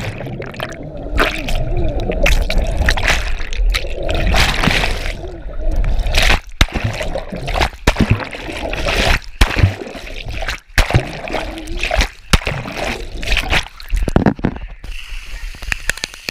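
Rushing, splashing water close over a waterproof camera, going muffled and cutting in and out as the camera dips under water, with sharp knocks and brief dropouts throughout.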